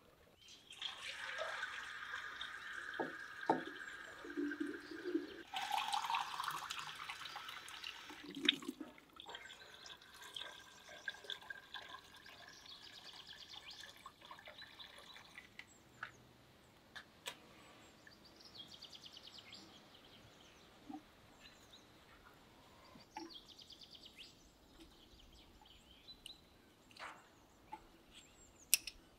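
Water poured from a metal jug into a samovar, a steady filling sound through about the first half. Birds chirp after that, with a few sharp knocks from wooden kindling, the loudest near the end.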